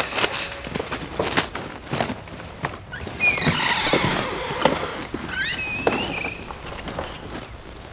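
Footsteps and knocks, then a squeaky door creaking as it is opened, and creaking again about two seconds later as it is pulled shut.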